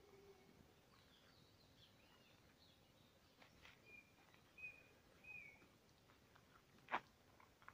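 Faint bird calls: a few short whistled chirps, some rising and falling, through the first half, then a single sharp click near the end.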